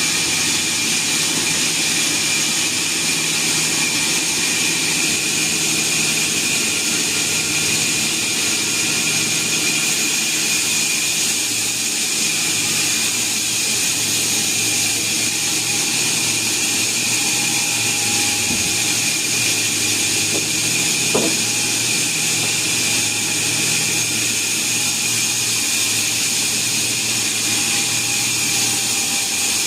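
Sawmill machinery running steadily, with a constant high whine and hiss. A brief sharp sound cuts through about two-thirds of the way in.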